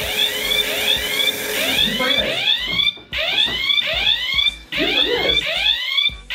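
Flying alarm clock's electronic alarm sounding from its base after the propeller has launched: a loud run of rising chirps, several a second, in bursts about a second and a half long with short breaks. It keeps going because the propeller has not been put back on the base.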